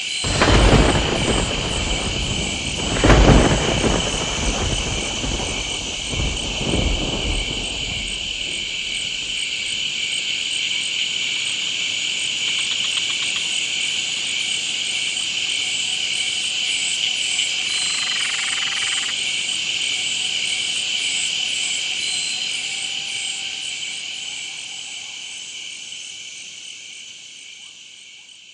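Night-time jungle insect chorus of crickets and katydids: a dense, steady, high-pitched pulsing drone. A few low rumbles come in the first several seconds, loudest about three seconds in. The chorus fades out near the end.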